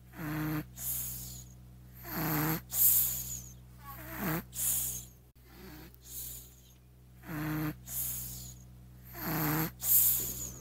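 Snoring sound effect: a run of snores, each a low rasping breath in followed by a hissy breath out, roughly every two seconds. The same few snores repeat as a loop over a faint steady hum.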